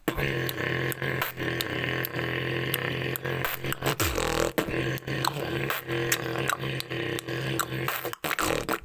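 Beatboxing: a held low hummed bass note with many quick percussive mouth clicks over it, broken by a short downward glide about four seconds in.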